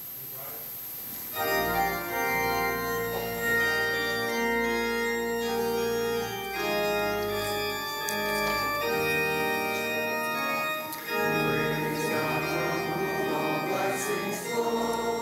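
Church organ playing long sustained chords, starting about a second in after a short hush, with a brief break near two-thirds of the way through before the chords resume.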